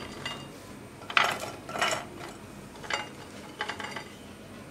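Whole green chilies dropped by hand into an empty glass jar, landing with a light rattle against the glass in several separate handfuls.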